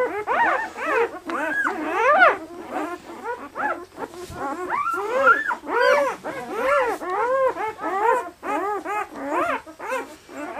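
A litter of two-day-old German Shepherd puppies squealing and whining over one another: many short cries that rise and fall in pitch, several a second, from more than one puppy at once.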